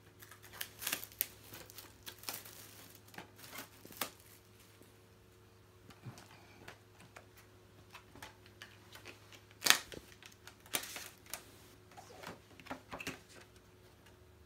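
Plastic shrink wrap being picked at and peeled off a Blu-ray steelbook case: irregular crinkles and small clicks, with a sharper crackle about ten seconds in.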